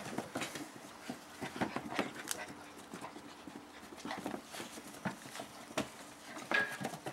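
Puppies scampering and tussling on a wooden deck and rubber mat, their paws and claws tapping irregularly on the boards, with some panting.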